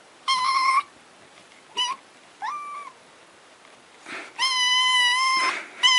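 A young kitten meowing repeatedly, high-pitched: several short meows, then a longer, steady one near the end.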